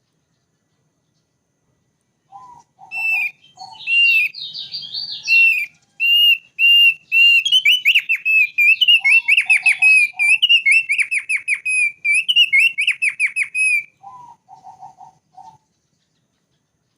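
Thick-billed white-eye singing: after a short pause, a long run of clear whistled notes that quickens into a rapid string, with short groups of lower notes at the start, in the middle and at the end. The song stops about a second and a half before the end.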